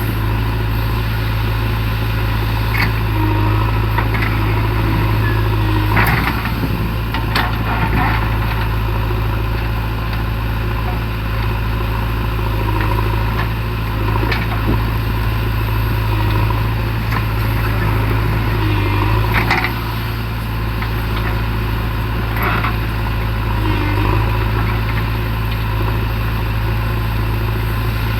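Diesel engine of a JCB 3DX backhoe loader running steadily, with a few sharp knocks of the working machine, the clearest about six seconds in and near twenty seconds.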